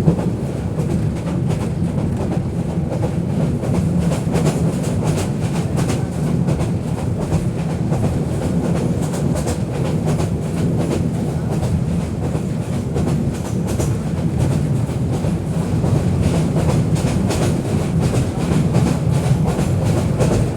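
Bangladeshi local train running along the track: a steady rumble with many quick clicks and clacks from the wheels passing over the rails.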